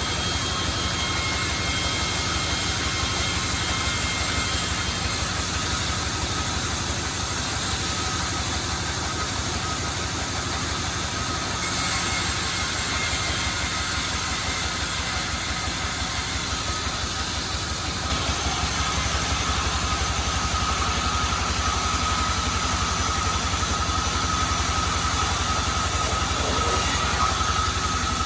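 Sawmill machinery running: a steady engine drone with a fast, even low pulse and a hiss over it, getting louder about two-thirds of the way through.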